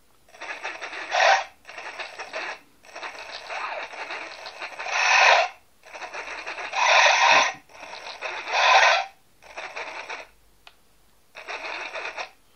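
Twin 90mm electric ducted fans cogging on startup: the motors stutter in about seven rough bursts, up to a couple of seconds each, with short silences between, instead of spinning up smoothly. Both fans run off a single HK300 ESC, and the stutter appears only when both are connected.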